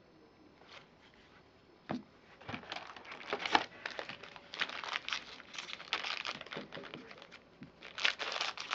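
Shiny wrapper of a trading-card pack crinkling and tearing as it is pulled open by hand: irregular crackling starts about two seconds in, after a single click, and keeps on in uneven bursts.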